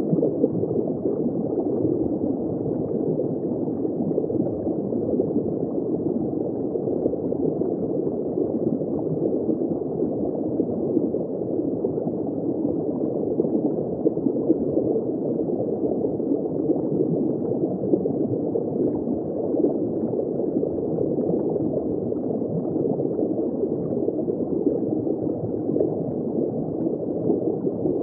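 Steady, muffled rush of water noise picked up by a camera's microphone underwater, with no distinct events.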